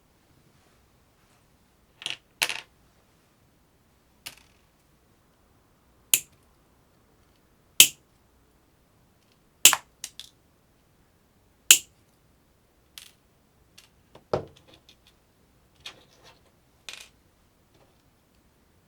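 A series of sharp clicks and clacks from the hard plastic parts of a 3D-printed flare gun being handled: about a dozen short snaps, irregularly spaced a second or two apart, with the loudest few in the middle.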